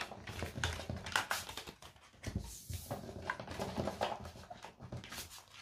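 Tarot and oracle cards being swept up and gathered off a tabletop: an irregular run of paper rustles, slides and light taps.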